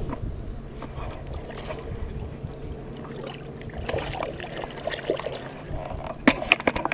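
Shallow lake water sloshing and trickling around hands and boots as a common carp is held in the water and let go at the shoreline, with scattered small clicks and a cluster of sharp clicks near the end.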